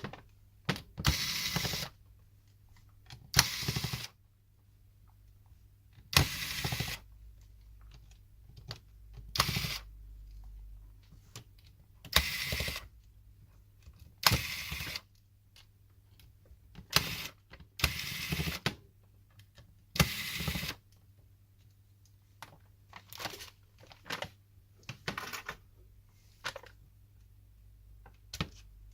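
Small screwdriver undoing the screws on the back of a phone, with scraping and handling noises in short bursts every second or two over a faint steady hum.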